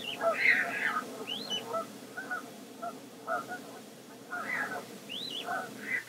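A flock of waterbirds calling, with many overlapping calls: short harsh notes and thin high whistles that rise and fall, easing off in the middle before picking up again. The calls are heard from a live cam's feed, picked up off computer speakers by a microphone.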